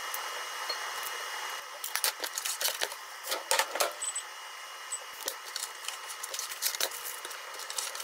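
Kitchen handling noise: a run of light clicks, taps and clatters as a glass bowl of broccoli and other utensils are moved about, with two brief high tones about four and five seconds in.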